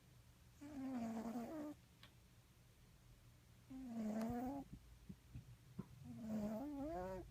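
Overweight domestic cat snoring: three pitched, whiny snores, each about a second long, roughly every two and a half to three seconds. The last one wavers up and down in pitch.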